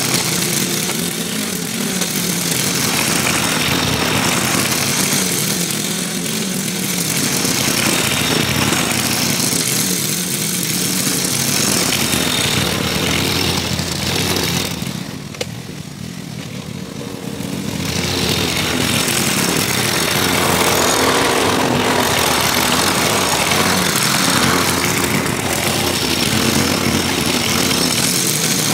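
Walk-behind gasoline lawn mower running steadily while cutting grass. It swells and eases every few seconds as it is pushed back and forth, then fades for a few seconds about halfway through as it moves farther off, and comes back.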